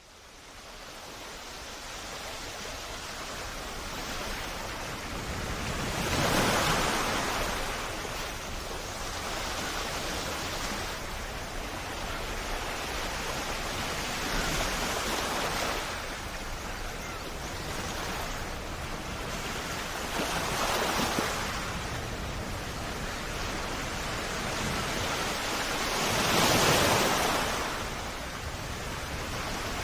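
Sea waves washing onto the shore, a steady rush of surf that swells with each breaking wave every several seconds, the loudest swells about six seconds in and near the end. The sound fades in over the first second or two.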